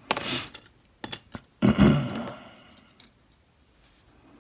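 Small metal lock parts clinking and rattling as a pin-tumbler cylinder is taken apart, with two light clicks about a second in and a louder jangle that fades out.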